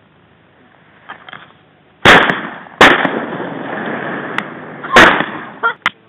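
Shotgun shots at passing ducks: three loud blasts, about two seconds in, again under a second later, and near five seconds, with a rolling echo between them. Two softer sharp cracks follow just before the end.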